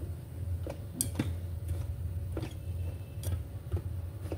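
Chopsticks stirring sticky rice in the metal inner pot of an electric rice cooker, clicking against the pot at uneven intervals, over a steady low hum.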